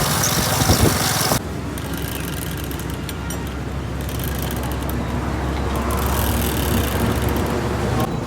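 KTM Duke 250 motorcycle running, its drive chain dry and unlubricated, which the owner says makes it very noisy. About a second and a half in the sound changes abruptly from a loud, rough engine sound to a quieter, steady low drone.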